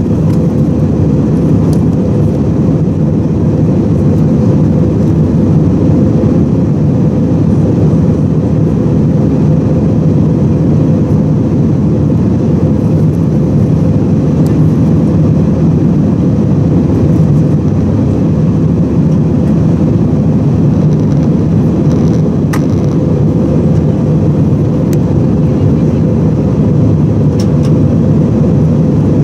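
Steady cabin roar of an Airbus A319-111 in flight, heard from a seat over the wing: engine and airflow noise from its CFM56-5B turbofans. A few faint ticks sound near the end.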